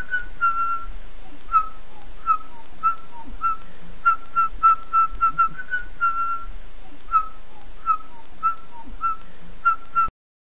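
A whistled tune of short, repeated notes at a fairly high pitch, some with quick downward slides, cutting off abruptly near the end.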